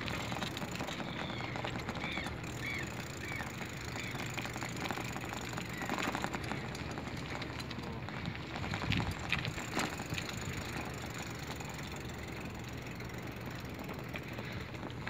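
Steady outdoor wind and movement noise with scattered faint clicks and rattles, and a few faint short squeaks in the first few seconds.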